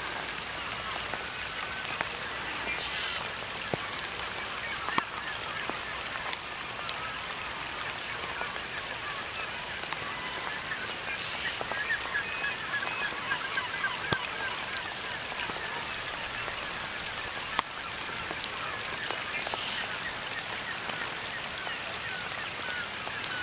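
A flock of Canada geese honking, many overlapping calls blending into a continuous chatter, with a few sharp clicks here and there.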